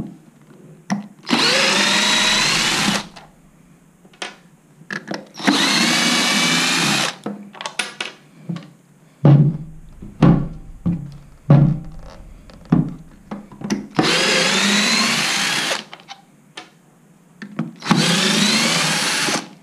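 Cordless drill with a Phillips bit backing screws out of the plastic base of a power-tool battery: four separate runs of motor whine, each about one and a half to two seconds long and rising in pitch. Between the second and third runs come short clicks and knocks of handling.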